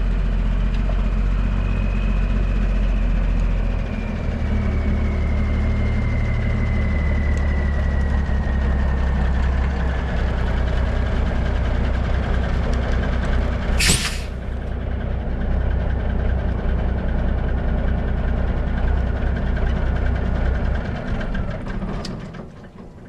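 Heavy diesel semi-truck engine running steadily, with a short loud air hiss about fourteen seconds in, like an air brake release. The engine sound drops away near the end.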